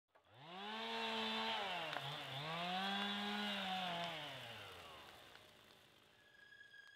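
Two-stroke chainsaw revving up, easing off for a moment about two seconds in, revving up again, then winding down and fading out.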